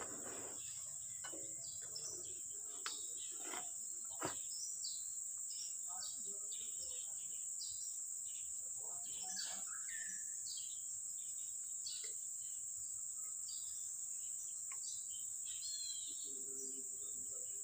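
Faint outdoor ambience: a steady high insect drone with many scattered bird chirps, and a couple of faint light taps a few seconds in.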